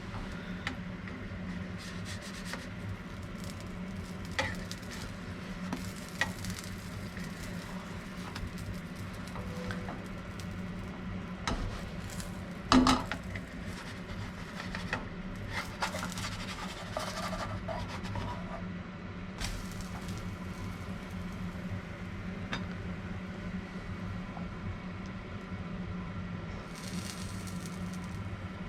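Pancakes frying in a pan, with a light sizzle over a steady low hum. Scattered clicks and scrapes of a utensil against the pan come through, and one loud clack about thirteen seconds in.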